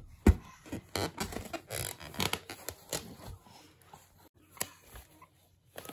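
A baby's hands slapping and rubbing a large clear plastic ball, giving a run of taps and scratchy rubbing. It is busiest in the first three seconds and thins out after.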